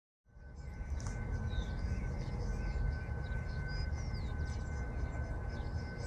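Outdoor street ambience rising out of silence: a steady low rumble with birds chirping high above it and a thin steady high tone.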